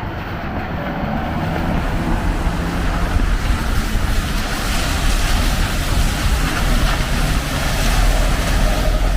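Rain falling with street traffic on wet roads, tyres hissing on the wet surface; the hiss builds after a few seconds and a deeper vehicle rumble comes up near the end.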